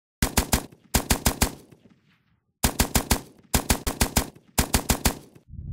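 Typewriter sound effect: five quick runs of sharp key clacks, each about half a second long, with short pauses between, as on-screen text is typed out.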